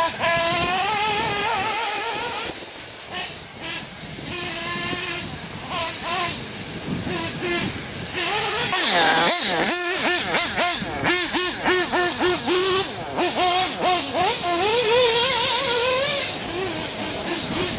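Electric radio-controlled car's motor whining, its pitch rising and falling over and over as it speeds up and slows, with a steady high hiss underneath.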